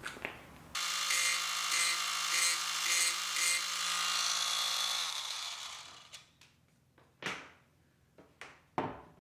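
Small electric rotary carving tool running and grinding into juniper deadwood, with about two rasping cutting strokes a second. The motor is switched off and spins down, falling in pitch, followed by a few light clicks near the end.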